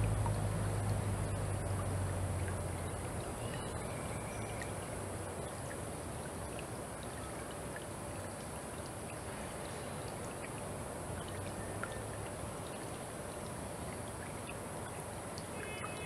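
Rainforest stream trickling steadily, with a low engine-like drone fading out over the first few seconds and a few faint short chirps.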